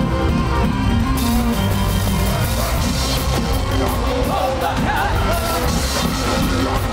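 Live reggae band music at a concert, played loud and steady. About a second in, a bright wash of cymbals and crowd noise joins, and wavering singing voices come through near the end.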